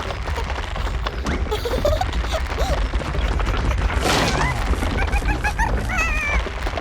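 Cartoon soundtrack of slapstick sound effects over background music: a few rising squeaky glides, a loud crash about four seconds in, then a quick run of short high squeaks and a wavering squeal near the end.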